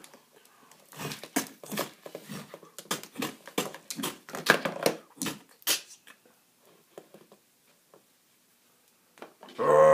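Hard plastic action figures clacking and knocking together in a play fight: a quick run of sharp clicks and taps for about five seconds, then a few scattered taps.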